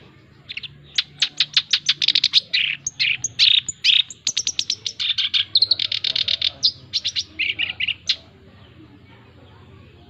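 Male black-browed reed warbler singing a fast, varied run of short high notes and trills, which stops about eight seconds in.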